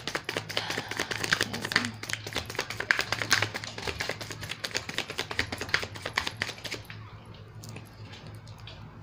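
A deck of tarot cards being shuffled by hand: a fast run of crisp card clicks and slaps that thins out to a few scattered taps about seven seconds in.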